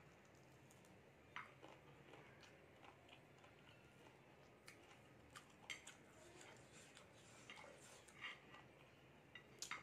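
Quiet eating by hand: faint chewing and mouth sounds with scattered small clicks and smacks, about ten in all, the sharpest near the end.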